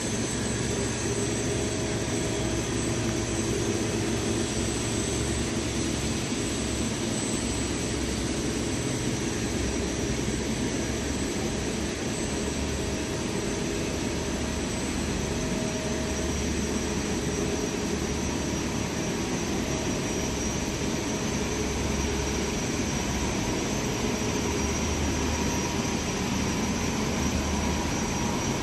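Flux-cored welding wire drawing machine production line running: a steady machine noise with thin high whines held throughout and a fainter mid-pitched tone that comes and goes.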